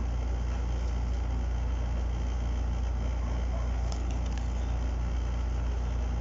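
Steady low-pitched background hum with an even hiss over it, and a few faint clicks about four seconds in.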